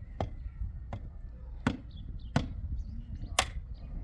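A series of five sharp knocks at uneven intervals over a low background rumble, the last one the loudest.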